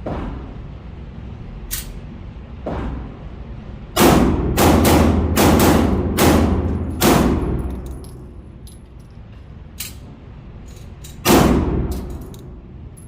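Shots from a Glock 47 9mm pistol: a fairly quick string of about six loud shots, then one more a few seconds later, with a few fainter shots before them.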